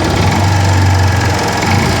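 Yamaha FZ16 Fazer's air-cooled single-cylinder engine running steadily, with the unusual engine noise that its owner is worried about.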